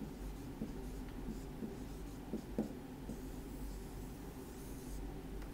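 Dry-erase marker writing on a whiteboard: faint scratchy strokes as an equals sign and dy/dx are written and a box is drawn around the answer.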